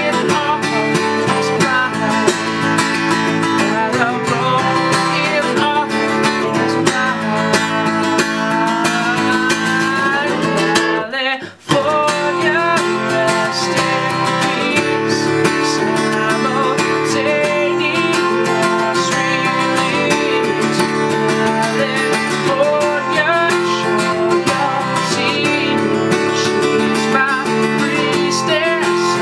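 Live acoustic performance: a strummed acoustic guitar accompanying a man singing. The sound drops out for a split second about eleven seconds in.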